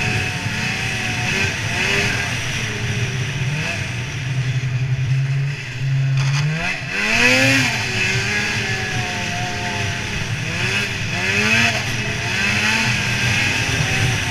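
Snowmobile engine running under way, its pitch rising and falling with the throttle and climbing sharply about seven seconds in. A steady rushing noise runs underneath.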